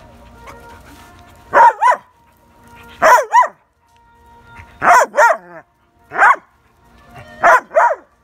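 German Shepherd puppy barking: nine loud barks, mostly in quick pairs about every second and a half, each bending up and then down in pitch.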